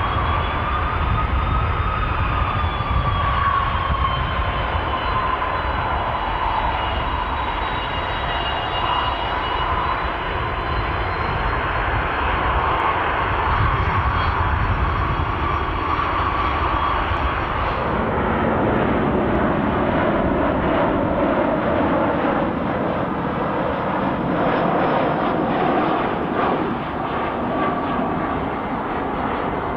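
Twin-engine jet airliner rolling away down the runway, its engines rumbling deeply with a steady high whine that slowly fades as it recedes. About two-thirds of the way through, the sound changes abruptly to an Airbus A319 on approach with its gear down, its engines humming with a steady whine.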